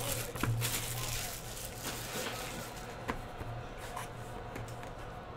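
Plastic shrink wrap crinkling and tearing as a sealed trading-card hobby box is unwrapped and handled, with short rustles and clicks that are busiest in the first second or two. A low steady hum runs underneath.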